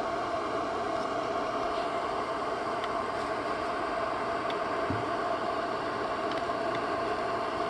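Small electronics cooling fan running steadily with a constant whine, with a few faint clicks from plugs and leads being handled.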